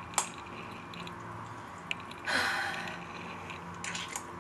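A metal fork clinks once against a ceramic bowl of spaghetti. About two seconds later comes a breathy exhale lasting about half a second, then a few faint small clicks near the end as she eats.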